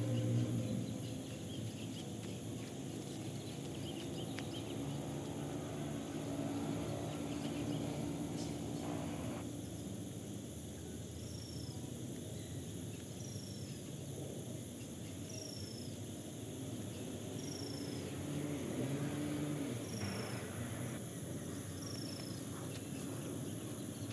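Field insects keep up a steady high-pitched drone. In the second half a short falling chirp comes six times, about every two seconds. A low hum runs underneath.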